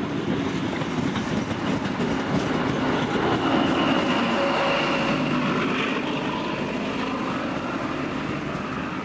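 NSW XPT passenger train passing close by: carriage wheels rolling over the rails in a dense steady rumble. About halfway through, the trailing diesel power car goes by, louder and with a high steady whine, before the sound eases slightly as the train draws away.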